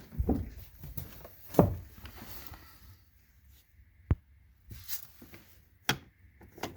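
A few separate sharp clicks and knocks with faint rustling between them, typical of a Jeep's hood latch release lever being pulled and handled. The hood does not pop because the release cable has broken.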